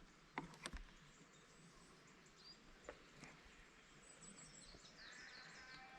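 Near silence with faint birds chirping, a quick run of short high chirps about four seconds in, and a couple of light clicks near the start.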